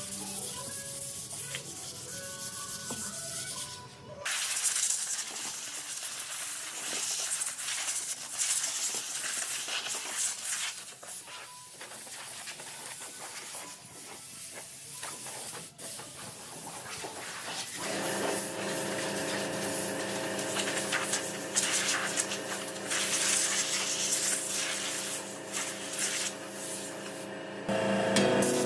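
Sandpaper rubbing on solid wood by hand, a steady scratchy hiss, under background music whose sustained tones come in clearly over the last ten seconds or so.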